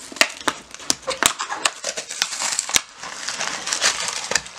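Plastic blind-bag packaging being torn open and crinkled by hand: a run of sharp crackles and rustles.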